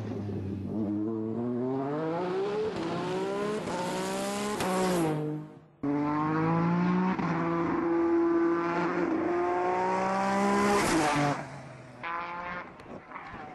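Peugeot 208 T16 Pikes Peak race car's twin-turbo V6 revving hard, pitch climbing and dropping back at each gear change. The sound breaks off sharply about five and a half seconds in, returns loud with another climbing run, then drops away about eleven seconds in.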